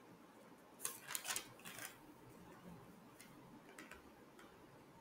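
Near silence: room tone with a few faint short clicks about one to two seconds in, and two fainter ones later.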